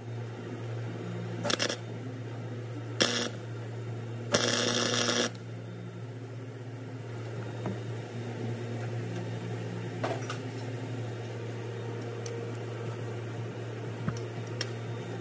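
Three short crackling bursts from a flux-core welder in the first five seconds, the last lasting about a second, over a steady low hum: tack welds fixing a nut onto a broken exhaust manifold bolt so it can be turned out. Near the end come a couple of light metallic clicks as a wrench goes onto the welded nut.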